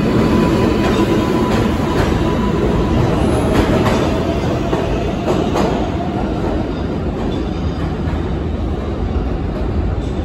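New York City subway 4 train pulling out of the station, its cars rumbling and clicking along the rails as it runs off into the tunnel. The rumble gradually fades.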